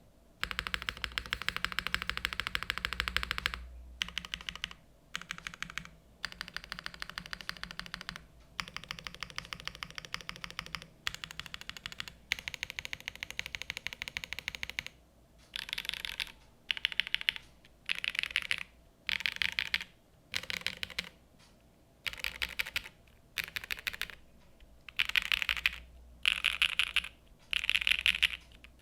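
Typing on a Sanction TKL mechanical keyboard with Gateron Raw switches on a polycarbonate plate and Keykobo Darling keycaps: long fast runs of keystrokes with brief pauses, then, about halfway through, short louder bursts of rapid keystrokes about once a second.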